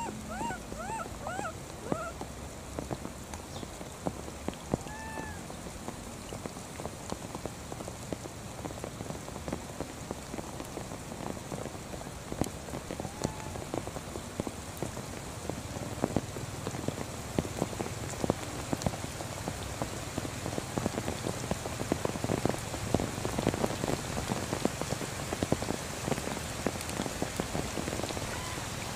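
Steady rain pattering on grass, leaves and ground, growing heavier in the second half, with a few short high squeaks near the start.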